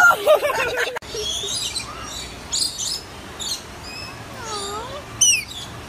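A brief shrill cry, then rainbow lorikeets chirping and squawking, many short high calls with a sharp rising squawk near the end.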